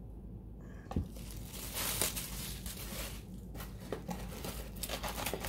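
Plastic bubble wrap crinkling and crackling as it is handled and crumpled, after a single knock about a second in.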